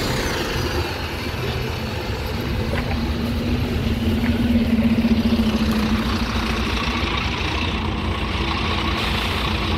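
Bus engine idling, with a steady hum that grows louder in the middle.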